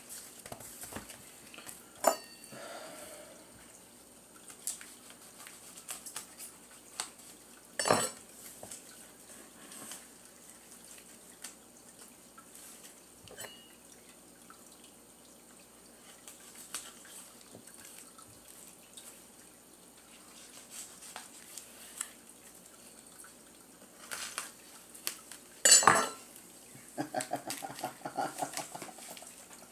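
Cardboard shipping box and its packing being handled and opened: scattered rustles, taps and small knocks, with three sharper knocks about two, eight and twenty-six seconds in.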